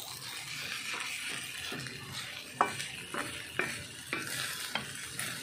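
Leftover rice with egg and garlic frying with a steady sizzle in an aluminium wok while a wooden spatula stirs and scrapes it. The spatula knocks against the pan about five times in the second half.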